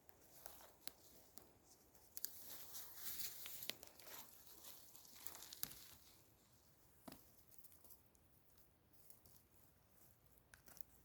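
Faint rustling and crackling of forest-floor litter, with a few sharp clicks, busiest a couple of seconds in and dying down after about six seconds.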